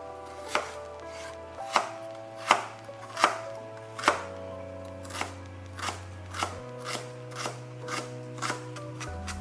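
Kitchen knife chopping fresh ginger on a cutting board while mincing it: about a dozen separate strokes, spaced out at first and coming quicker from about five seconds in. Soft background music with held chords plays underneath.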